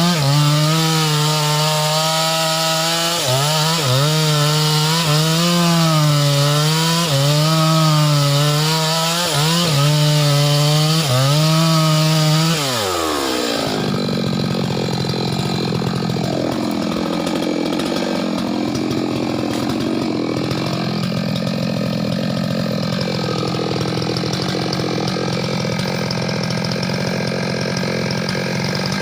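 Chainsaw running at high revs while cutting wood, its pitch repeatedly dipping and rising under load. About halfway through the pitch drops off sharply and a fainter, rougher chainsaw sound carries on.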